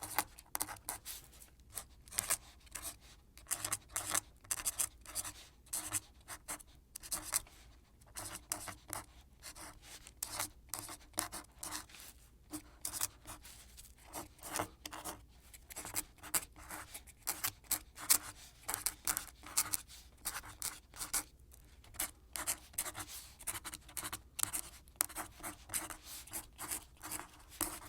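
Quill pen scratching across paper in a steady run of short, irregular writing strokes, several a second.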